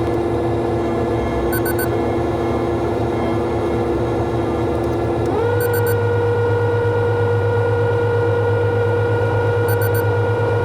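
Combine harvester running with a steady, pitched mechanical hum while unloading wheat into a truck. About five seconds in, the hum steps quickly up in pitch as the machine speeds up, then holds steady. Faint high ticks sound roughly every four seconds.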